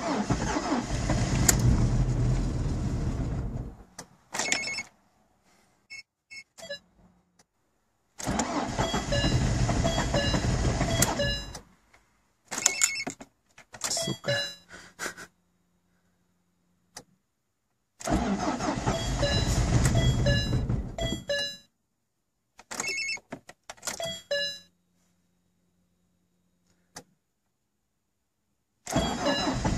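A Lada 2114's petrol engine cranked by its starter motor in −32 °C cold, in repeated attempts of about three to four seconds each with pauses between, and the engine does not catch. Short clicks come in the pauses, and another cranking attempt begins near the end.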